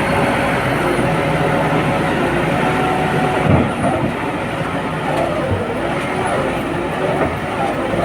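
Industrial mobile wood crusher running steadily while shredding wood into chips. There is a brief louder jolt about three and a half seconds in, then the machine's pitch dips and recovers a few times.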